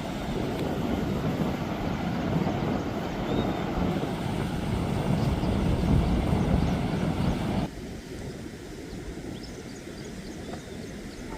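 Floodwater rushing over a washed-out earthen road, a loud steady rushing noise that cuts off abruptly about two-thirds of the way in, leaving a quieter hiss with faint high chirps.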